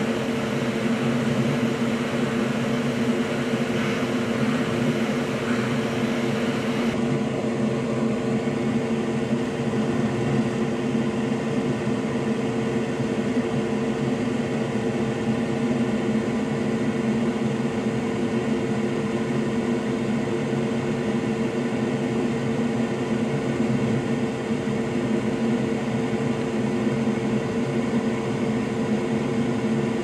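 Loud, steady whir and hum of an electric blower on an electronics soldering bench, with several steady tones under an airy hiss; the higher hiss drops away about seven seconds in.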